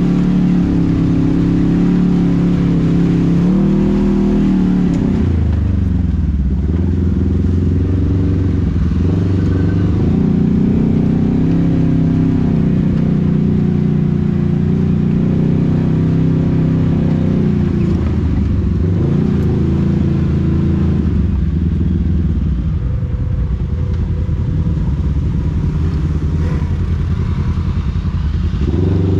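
An engine running loudly and steadily, its pitch shifting down and back up several times as the speed changes.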